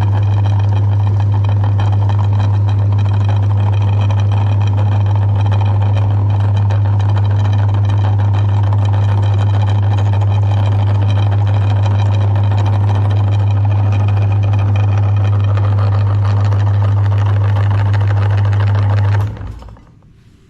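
Electric meat grinder's motor running with a loud, steady low hum and a whirring clatter, then switching off and winding down near the end.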